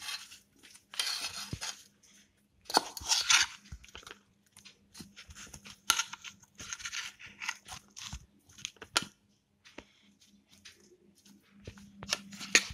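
Pineapple pieces being mixed by hand with spices and lemon juice in a bowl: a series of irregular wet rustling and scraping strokes with occasional sharp clicks.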